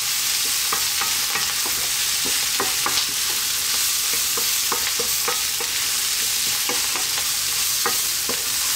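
Sliced vegetables sizzling in hot oil in a wok while being stir-fried with a wooden spatula: a steady sizzle with irregular scrapes and knocks of the spatula against the pan.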